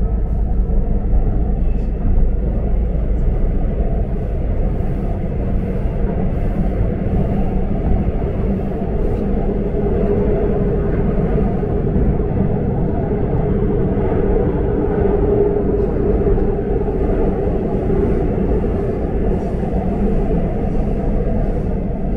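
Seoul subway train running: a steady low rumble of wheels on the track, with a hum that grows stronger in the middle and then fades.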